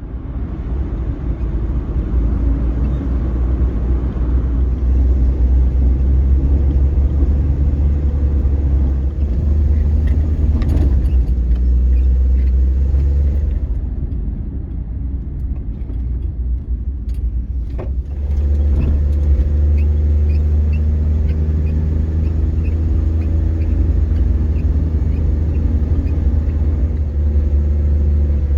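A car driving: a steady low rumble of engine and road noise that eases off for a few seconds about halfway through, then returns.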